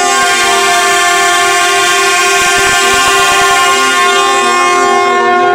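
Shinkansen platform departure bell: one steady electronic tone held at the same pitch for about five and a half seconds, then cutting off.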